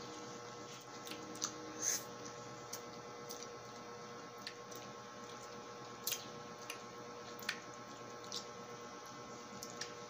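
Wet mouth sounds of raw lemon slices being bitten and sucked: about ten short, scattered wet smacks and slurps, the loudest about two seconds in, over a faint steady hum.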